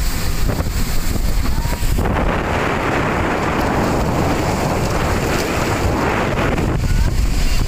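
Speedboat running fast over open water: wind buffeting the microphone and water rushing past the hull, steady and loud. A stronger hiss of spray sets in about two seconds in and eases near the end.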